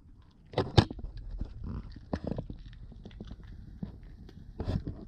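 A papillon puppy eating a small dry treat off a cloth mat: a string of short crunching and mouth clicks, with two sharper knocks about a second in and another cluster near the end.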